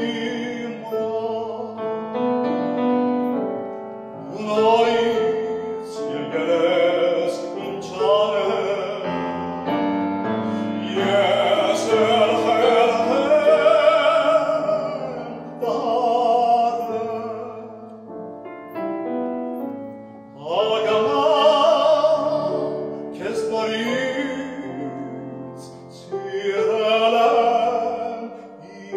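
Male classical singer performing an Armenian song in operatic style with vibrato, accompanied by grand piano. His phrases swell loudest around the middle and again later, with the piano carrying on alone in the short breaths between phrases.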